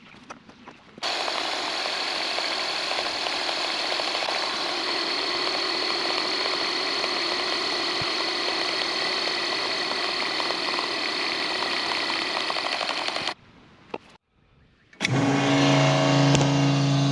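Heavy-equipment diesel engine running steadily with a high whine, cut off abruptly after about twelve seconds. After a brief pause, a deeper steady drone starts near the end.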